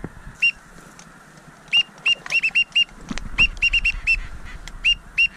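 A rapid series of short, high whistled peeps, coming in quick runs of two to five, in the style of teal whistling. One sharp click sounds about three seconds in.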